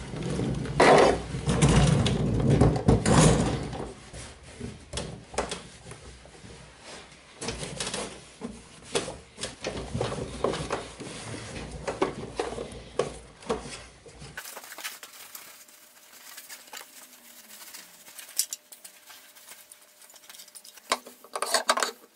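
A petrol lawnmower being moved about on a wooden workbench and wiped down with a rag. Thumps and clatter come during the first few seconds as the mower is shifted, then irregular rubbing and small clicks of the cloth working over the plastic wheels and parts.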